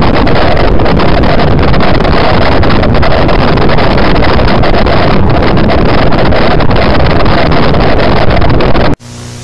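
Loud, dense rumbling noise that runs steadily and then cuts off abruptly about nine seconds in, replaced by a much quieter steady low hum with hiss.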